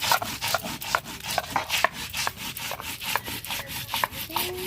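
Cumin seeds being ground into a paste by hand on a grinding stone (shil-nora), the stone pestle scraping back and forth in quick repeated strokes, several a second.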